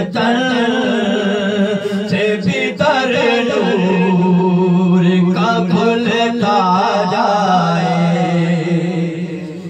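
A man singing an Urdu devotional naat about durood into a handheld microphone, unaccompanied, in long melodic phrases over a steady low hum.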